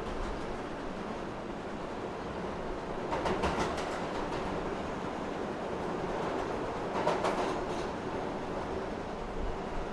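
Subway car in motion: a steady rumble of wheels on the rails, with bursts of clattering clicks about three seconds in and again about seven seconds in.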